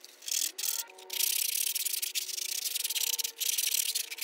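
A brief stretch of abrasive rubbing, then a small corded rotary tool spins up about a second in and sands a 3D-printed plastic part: a steady gritty hiss over a faint motor whine.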